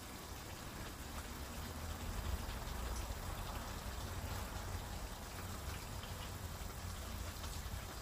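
Steady low hiss and rumble of a portable butane stove burning under a pan of pork ribs simmering in broth, with no single loud event.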